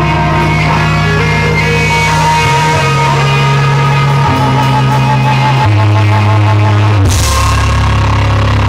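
Rock band playing loud through a concert PA (bass guitar, electric guitar and drums) in a heavily distorted audience recording. The bass line moves between notes every second or two, and a cymbal crash comes about seven seconds in.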